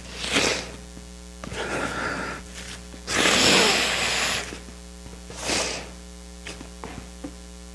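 A man crying, sniffling and breathing unsteadily into the pulpit microphone, four times, the longest and loudest about three seconds in as he holds a tissue to his nose. A few light tissue rustles follow near the end, over a steady low hum.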